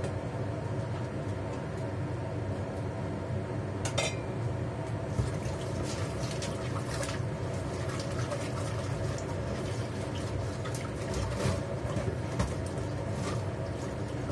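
Dishes being washed at a stainless steel kitchen sink: running tap water with pots, lids and utensils clinking now and then, the first sharp clink about four seconds in. A steady hum runs underneath.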